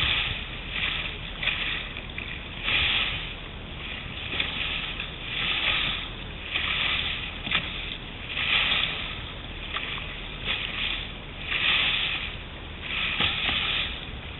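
Water rushing and splashing along the side of a moving boat's hull as it cuts through small waves. The hiss swells and fades every second or so.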